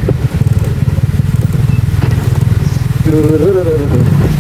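TVS Ntorq XT scooter's single-cylinder engine running steadily with a low, fast-pulsing rumble.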